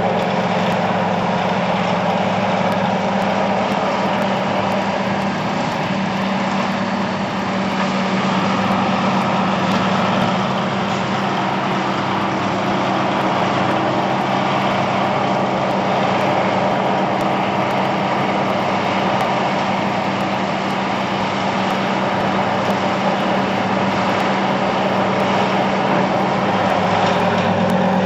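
Diesel engine sound effect for a model 10W Monighan dragline, running steadily at an even speed.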